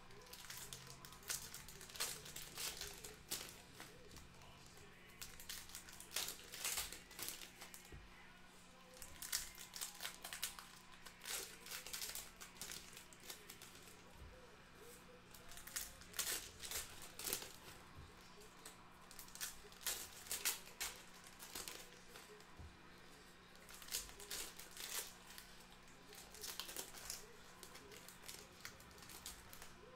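2021 Panini Donruss Football card pack wrappers being torn open and crinkled in irregular handfuls, with quieter pauses in between.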